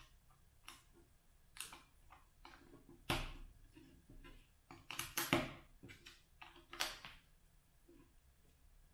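Lego bricks being handled and pressed together: a series of separate sharp plastic clicks. The loudest comes about three seconds in, with a quick run of three clicks around five seconds.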